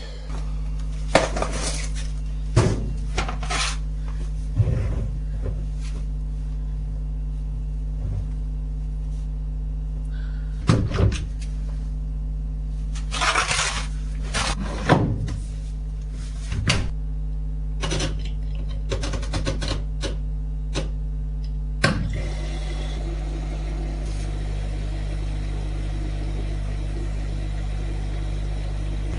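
Dishes and pots clattering and knocking now and then over a steady low hum; the clatter stops about twenty-two seconds in.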